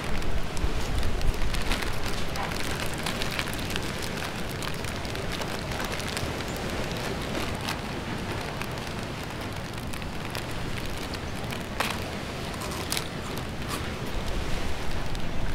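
Crinkling and tearing of a plastic corn-snack bag as it is pulled open by hand, a run of sharp crackles throughout.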